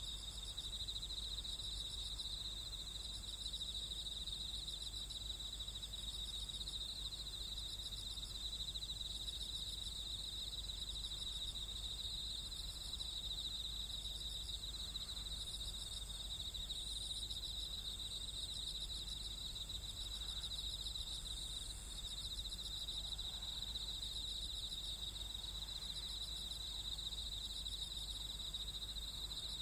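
Crickets and other insects chirping steadily in a field at night: a continuous high trill, with a faster pulsing call above it.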